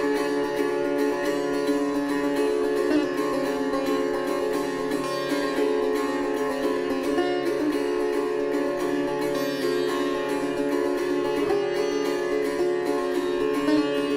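Sitar playing raag Puriya: a fast, even stream of plucked notes over a steady ringing drone of the strings.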